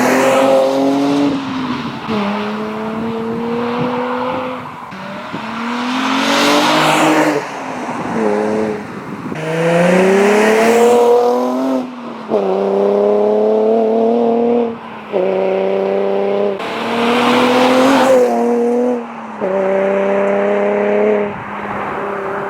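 Nissan 350Z's 3.5-litre V6 through an Invidia Gemini cat-back exhaust, heard from outside, revving up through the gears: the engine note climbs, drops at each shift and climbs again. It comes as a string of short clips with abrupt cuts between them.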